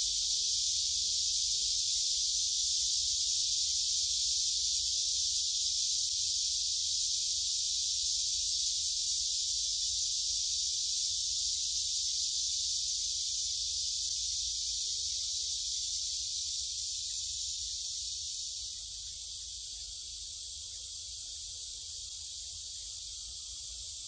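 Cicadas singing in a dense, unbroken chorus, a loud steady high hiss, over a low rumble. About three-quarters of the way through, the highest part of the chorus drops a little.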